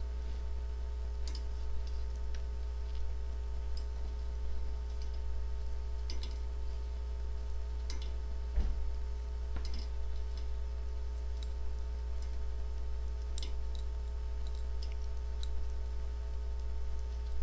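Metal circular knitting needles clicking faintly and irregularly against each other as knit stitches are worked, over a steady low hum.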